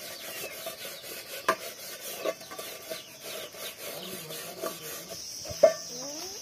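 Dry millet plants rustling and rasping as they are handled and picked, with scattered crackles and two sharp snaps, the louder one near the end. A steady high insect buzz sets in during the last second or so.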